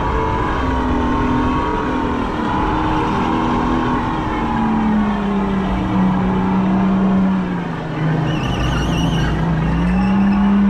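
A go-kart's motor whining at speed, its pitch falling and rising through the corners over wind and road noise. A brief wavering squeal comes about eight seconds in.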